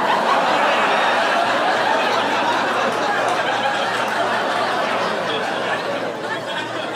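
Audience laughing, loud at first and slowly dying down.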